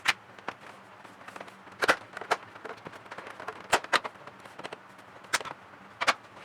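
Sharp clicks and knocks of hard plastic and metal parts being handled, seven in all at uneven gaps, as a PS4 Pro console is taken apart for cleaning.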